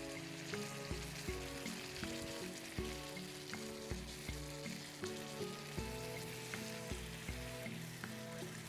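Food sizzling as it fries in a pan, with background music with a steady beat underneath.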